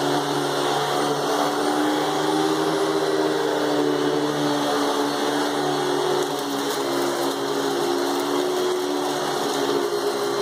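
Hoover Spectrum canister vacuum cleaner running on high with its power head: a steady motor whine made of several held tones that shift slightly in pitch, over a hiss of rushing air.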